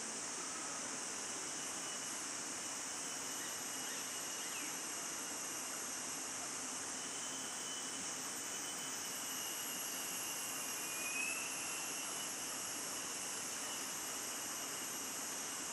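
Steady drone of forest insects: a high, even hiss with thin, steady high trills over it. A short falling note sounds about eleven seconds in.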